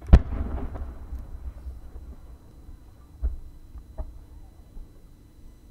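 Launch of a 10-inch firework shell from its mortar: one loud sharp thump that echoes and fades over a couple of seconds. Two smaller sharp pops follow about three and four seconds in.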